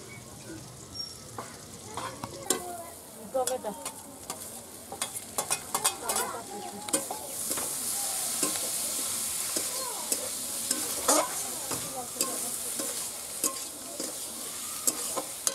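Chopped tomatoes and greens frying in a metal wok, stirred with a metal spatula that clinks and scrapes against the pan. Sharp clinks come through the first half, and a steady hissing sizzle comes up about seven seconds in.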